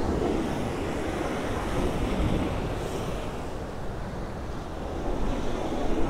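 Rough sea surf washing and breaking against a concrete sea wall, a continuous roar of churning water that swells loudest right at the start and again near the end. Wind rumbles on the microphone.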